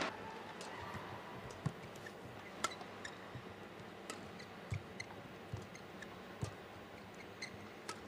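Badminton rally: rackets striking the shuttlecock with sharp clicks about once a second, with players' shoes squeaking and thudding on the court over a low arena hum.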